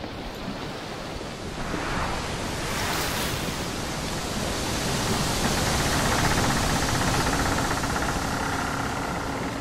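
A steady rushing noise that swells over the first few seconds and then holds, with a faint hum coming in during the second half.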